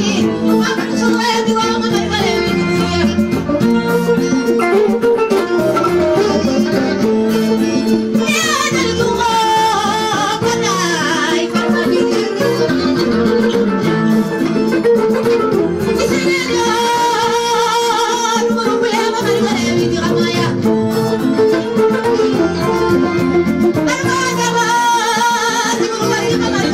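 A woman singing through a microphone and PA over amplified guitar accompaniment. Her voice comes in separate sung phrases, with stretches of guitar between them.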